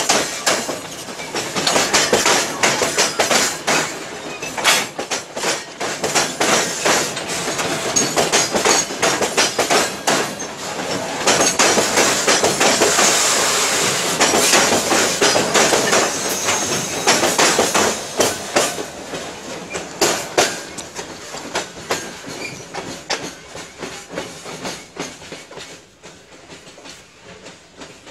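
Metre-gauge freight train wagons rolling past close by, their wheels clicking and clattering over the rail joints with many sharp knocks. About two-thirds of the way through the clatter starts to fade as the last wagon moves away.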